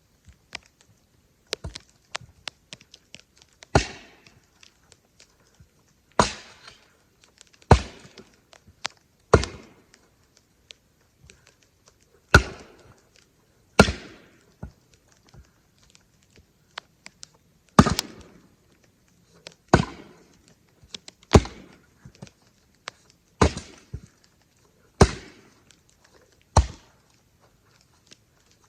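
Firewood being handled: about a dozen heavy wooden knocks, one every one and a half to four seconds, each with a short ringing tail, and light clicks between them.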